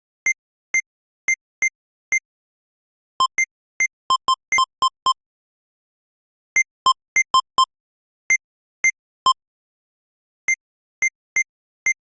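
Synthesized sci-fi text-typing sound effect: very short electronic blips at two pitches, one about an octave above the other, fired in irregular typing-like runs with brief silent pauses between them.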